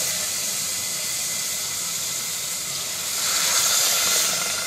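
Water pouring steadily into a steel pot of sugar, an even rushing hiss that gets a little louder near the end.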